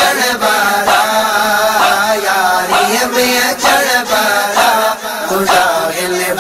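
Sufi devotional song (manqabat): voices chanting a repeated melodic refrain over a steady low sustained note.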